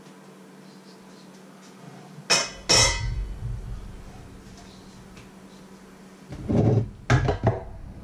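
Crockery being handled on a kitchen counter: two sharp knocks about two seconds in as a mug is picked up, then a duller clatter and two more knocks near the end as it is set back down among other kitchenware.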